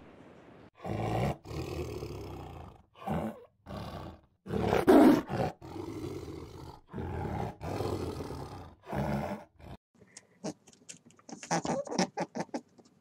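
Tiger roaring in a series of about eight separate roars, the loudest about five seconds in. After about ten seconds it gives way to a run of quick, fainter clicks.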